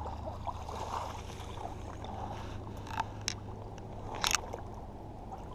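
Shallow river water sloshing and splashing around a wading angler's legs as a hooked smallmouth bass is brought in, over a steady low rumble. Three brief sharp sounds come between about three and four and a half seconds in.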